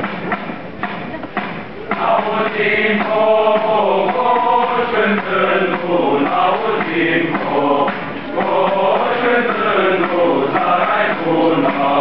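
Male choir singing a Romanian colindă (Christmas carol) together under a conductor, with the voices coming in fuller and louder about two seconds in.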